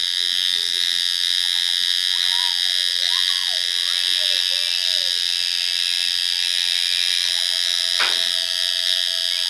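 Electric tattoo machine buzzing steadily and evenly as it works ink into the skin. A single faint click comes about eight seconds in.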